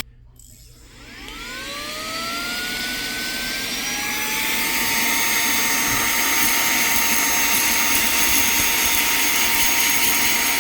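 Cordless handheld vacuum-blower's brushless motor starting up: a whine rises in pitch over about four seconds, then settles into a steady high whine over a loud rush of air.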